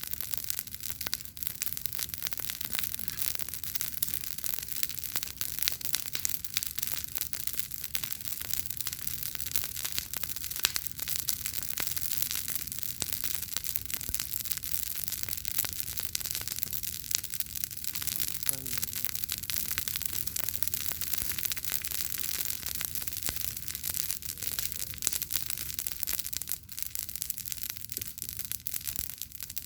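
Campfire burning with a steady dense crackle of small pops and snaps over a constant hiss.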